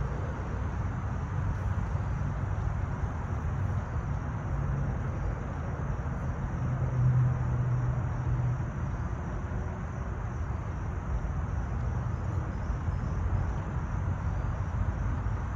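Steady low rumble of outdoor ambience, swelling slightly about seven seconds in.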